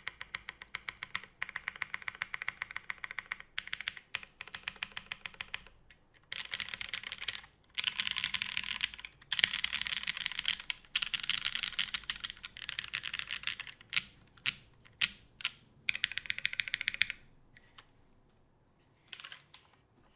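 Custom mechanical keyboard being typed on: an NRD Kaze case with an aluminium plate, BCP switches lubed with 205g0 and GMK keycaps. Steady keystrokes at first, then fast, dense runs of typing in the middle. A handful of separate, louder key presses and one short run follow, thinning out to a few faint presses near the end.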